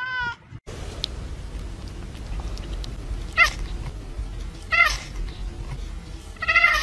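Domestic cats meowing. There is one meow at the very start, then three short meows about a second and a half apart, the last one longer and louder, over a steady background hiss and rumble.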